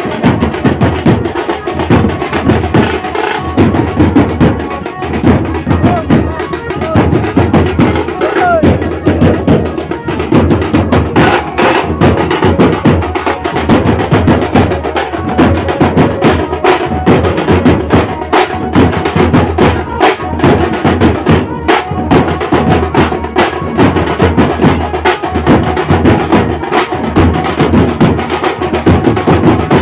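Village band-party drums played in a street procession for gondi dhemsa dancing: a large bass drum and stick-beaten side drums keep up a loud, dense, driving rhythm, with crowd voices underneath.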